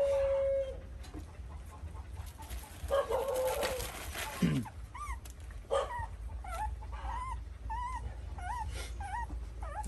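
Puppies whining and whimpering: a couple of longer, steady whines early on, then from about five seconds in a quick run of short, high, rising-and-falling whines, roughly two a second.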